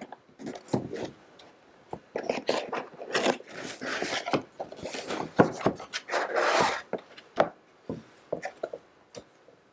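Cardboard box handled and opened on a wooden tabletop: cardboard scraping and rubbing as the box is turned and its end tab and lid flap are pulled open, with light knocks. The rubbing is busiest in the middle; a few light clicks follow near the end.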